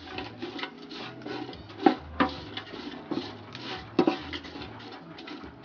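Wooden spatula stir-frying dry anchovies in a large aluminium pot: repeated scraping and rustling of the dried fish against the metal, with a few sharp knocks of the spatula on the pot, about two seconds in and again at four seconds.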